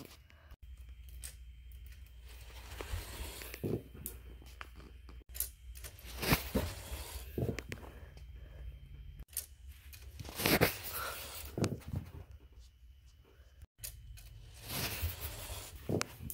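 Marbles clicking and rattling on a plastic marble run and knocking together on carpet, with rustling handling noise. The sound breaks off abruptly four times where short clips are spliced together.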